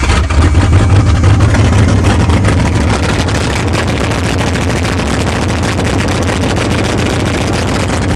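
Carbureted car engine on a cold start with a sticking choke, catching abruptly and running fast. It is a little louder for the first couple of seconds, then settles to a steady high idle.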